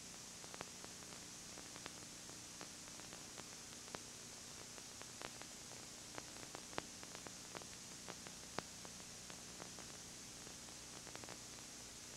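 Steady tape hiss with a faint low hum and scattered clicks and crackles: the background noise of a tape recording, with no other sound.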